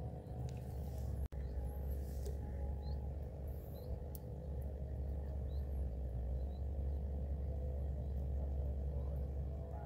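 Quiet outdoor background: a steady low rumble with a few faint, short high chirps scattered through it, and a brief dropout about a second in.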